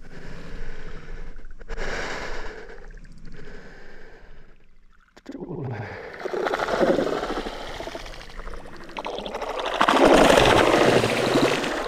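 Baitcasting reel being worked, a rapid clicking whir that comes in several spells and is loudest near the end.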